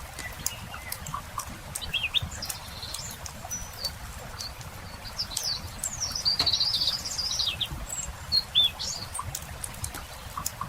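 Small birds chirping, with a longer warbling song phrase in the middle, over the steady sharp clicks and pops of a crackling wood campfire.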